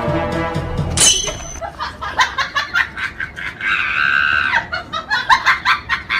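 A music clip cuts off about a second in, followed by a person laughing hard in quick repeated bursts, with a high held cry partway through.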